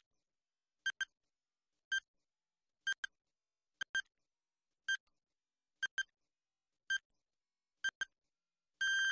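Countdown timer sound effect: a short electronic beep about once a second, some doubled into two quick blips, with a long held beep near the end as the count reaches zero.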